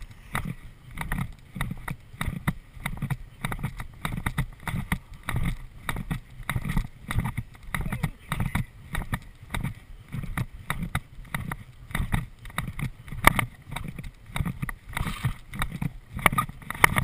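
Horse galloping on grass, heard from the saddle: rhythmic hoofbeats and blowing about twice a second, with sharp clicks from the tack in between.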